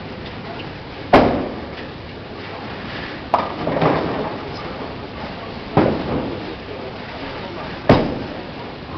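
Bowling alley: four sharp crashes and clatters about two seconds apart over a steady murmur of chatter and machinery. The last one is a bowling ball thudding onto the lane as it is released.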